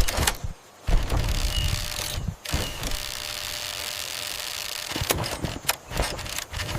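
Mechanical cartoon sound effects: sharp clicks at the start, a steady rushing, whirring noise through the middle, then a quick run of clicks and rattles near the end.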